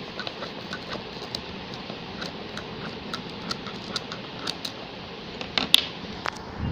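Scissors cutting through a soft plastic wrapper: a run of small, irregular clicks and crinkles, with a sharper click near the end.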